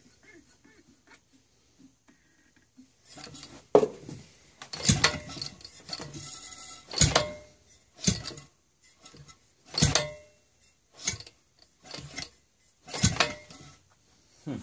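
Maytag Model 72 two-stroke engine being spun over by hand at its flywheel without starting, giving a series of sharp clacks with a short metallic ring, about one every second or so from about four seconds in. It fails to fire because its spark plugs are oil-fouled.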